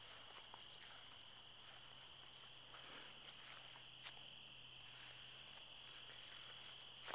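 Faint, steady high-pitched trilling of an insect chorus, with a few soft taps.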